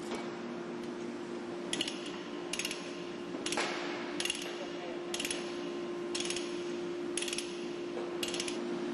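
Lever chain hoist being ratcheted to tension a rigging chain. The ratchet clicks in eight short strokes, about one a second, over a steady machinery hum.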